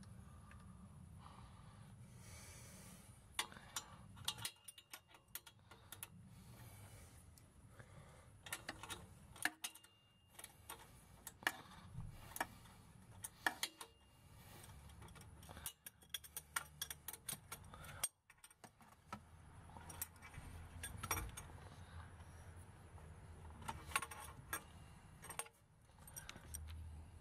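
Faint metallic clicks and clinks in short, irregular bursts from hand tools on the nuts of the exhaust flex pipe's upper flange bolts.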